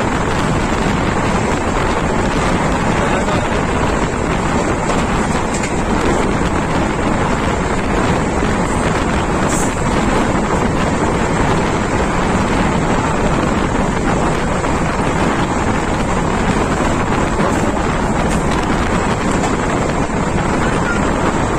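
Wind buffeting a microphone held out of a moving passenger train's window, over the steady running noise of the train.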